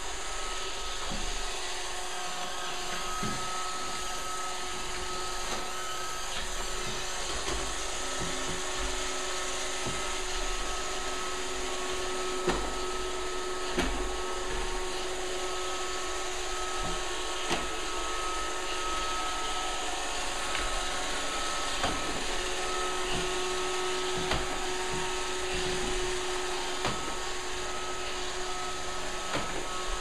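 Roomba robot vacuum running steadily with a whirring motor hum and a few steady tones, with several short knocks scattered through.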